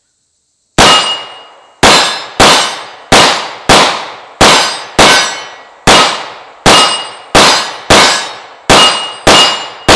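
CZ 75 P-01 9mm pistol fired fourteen times in a steady string, the shots about half a second to a second apart. After many of the hits a steel target plate rings with a clear metallic tone.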